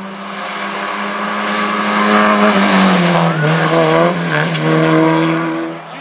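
Historic rally car at high revs, getting louder as it approaches. The engine pitch drops about halfway through as it passes close by, with a brief tyre squeal. The sound falls away near the end.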